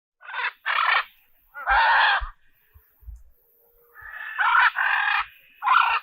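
Macaw squawking: about six loud, harsh calls in short bursts. The longest comes around two seconds in, and three more come close together near the end.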